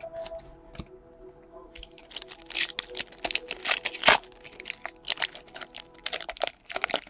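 A baseball card pack's wrapper being torn open and crinkled by hand: a quick run of sharp crackles starting about two seconds in, loudest around four seconds.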